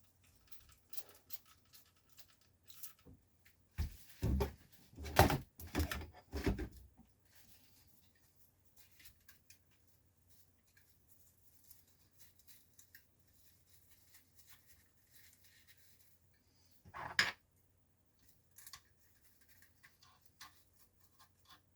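Trigger spray bottle of isopropyl alcohol squirted in a few short bursts about four to seven seconds in and once more past the middle, for cleaning floppy-drive heads, amid small clicks of parts being handled.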